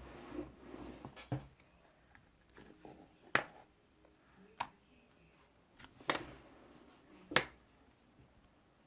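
About five short, sharp clicks or taps at irregular intervals, a second or more apart.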